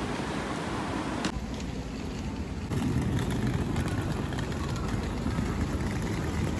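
City street ambience: road traffic passing and a steady rumble of cars on the street.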